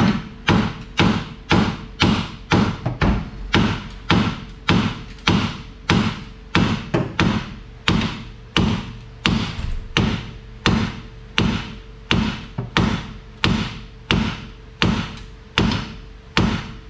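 Hammer blows on steel, a steady run of about two and a half strikes a second, each ringing briefly: a hammer driving the rear steering knuckle of a 2000 Ford Contour off its stuck strut.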